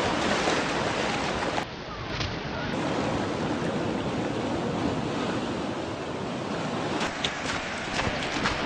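Ocean surf on a beach: a steady hiss of waves, dropping in level for about a second near two seconds in, with a few short ticks near the end.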